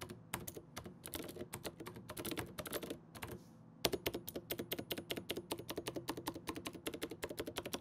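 Mechanical keyboard with clicky Cherry MX Green switches and zinc metal keycaps (Coolermaster Quickfire XT) being mashed: a quick run of sharp key clicks, a short pause a little before halfway, then faster, denser clicking.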